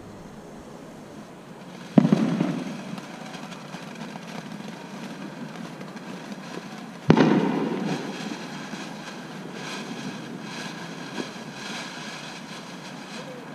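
Two loud firework bangs about five seconds apart, each with a decaying rumble, followed by several seconds of fast, light crackling.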